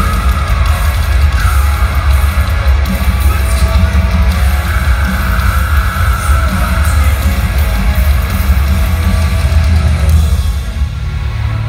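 Metalcore band playing live through an arena PA, heard from the crowd: heavy distorted guitars over a very heavy, booming bass and drums, with a shift in the bass pattern near the end.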